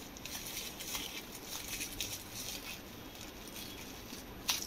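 Clear plastic packaging being crinkled and rustled by hand as it is pulled open, with a louder, sharper rustle near the end.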